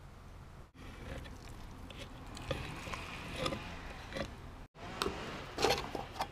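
A flat stick stirring thick coal tar epoxy primer in a metal paint can, giving irregular scrapes, clacks and wet sticky sounds. A short louder cluster near the end after a brief break.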